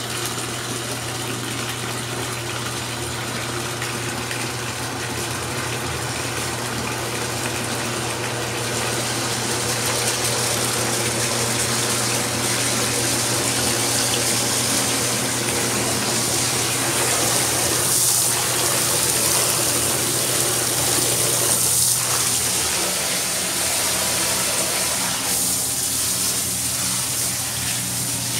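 Superior 1/4 HP submersible thermoplastic utility pump running in shallow, shampoo-diluted bathwater, a steady motor hum under the rush of pumped water. The water rush grows louder about ten seconds in.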